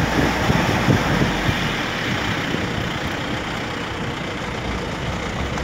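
Steady rumble and rush of a road vehicle travelling along a hill road, with a few low wind buffets on the microphone in the first second or so.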